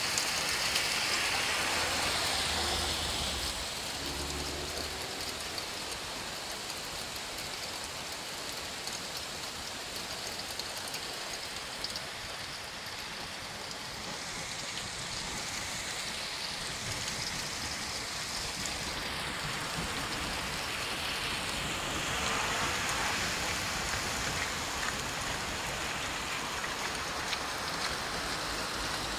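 Heavy thunderstorm downpour of rain and hail falling onto a flooded, hail-covered street: a steady rushing hiss.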